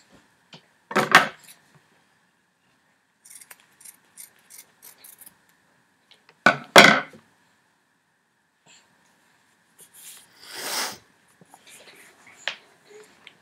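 White athletic tape being pulled off the roll and torn during a wrist taping: loud short rips about a second in and again at about six and a half seconds, light crackling of tape peeling in between, and a longer pull near eleven seconds.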